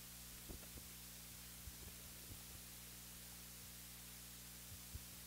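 Near silence: a steady low electrical hum, with a few faint soft knocks scattered through it.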